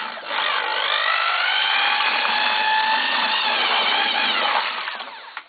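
Electric drill with a paddle mixer attachment stirring lime putty and water in a bucket. The motor whines steadily, then winds down and stops near the end.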